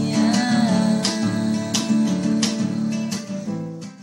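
Acoustic guitar strumming the closing chords of a song, one stroke about every two-thirds of a second, fading out near the end.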